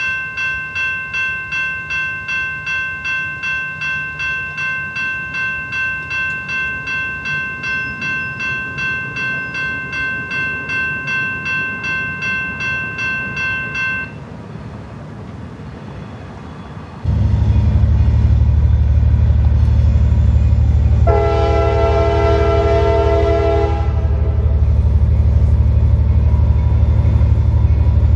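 Railroad crossing bell ringing about twice a second as the signals flash and the gates come down, stopping once the gates are down. A few seconds later a loud low rumble starts abruptly, and the approaching CSX freight locomotive's horn sounds one long blast of several notes together.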